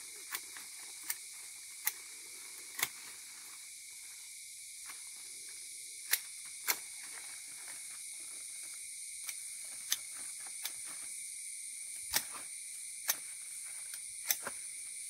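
Hand secateurs snipping through the stems of a leafy legume branch, chopping it into mulch: about ten sharp snips at uneven intervals, some quickly after another.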